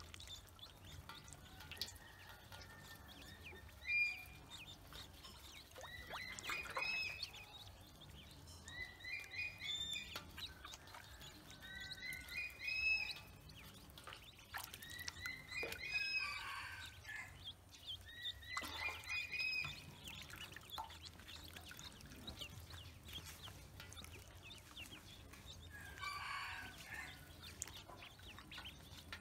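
Ducklings peeping: bursts of short, high chirps from several birds at once, coming every few seconds, with faint splashes of water as they paddle.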